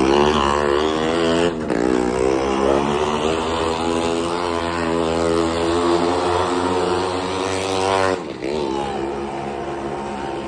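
Motorcycle engine running hard as the rider circles the near-vertical wooden wall of a well-of-death drum. Its pitch wavers up and down lap by lap, dipping briefly about a second and a half in and dropping sharply just after eight seconds.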